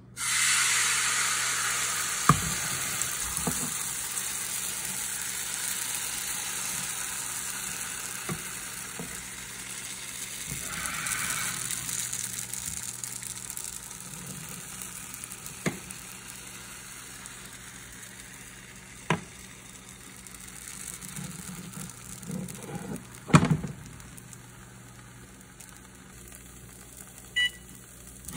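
Crepe batter hitting a hot oiled nonstick frying pan: a loud sizzle that starts suddenly and slowly dies down as the thin crepe sets. A few sharp knocks of pan or utensil, the loudest late on.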